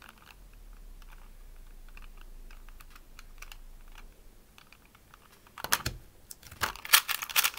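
Plastic clicks of a Rubik's Metallic 3x3 cube: a few faint clicks while it is handled, then about five and a half seconds in, a rapid run of loud clacks as its layers are turned fast in a timed speedsolve.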